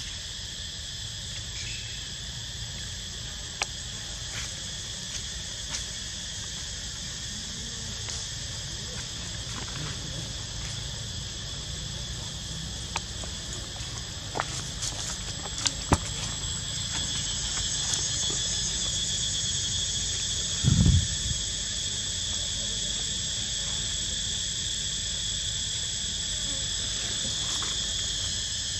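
Steady high-pitched insect chorus that grows louder about two-thirds of the way through, over a low rumble. A few small clicks come around the middle, and a short low thump comes later.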